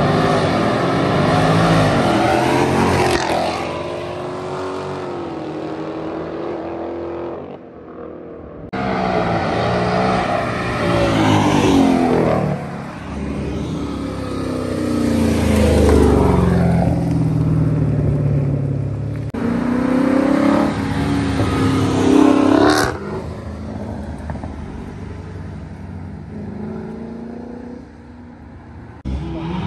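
Cars accelerating hard down a street one after another, engines revving up through the gears and swelling as they pass close by. A single sharp crack about three quarters of the way through.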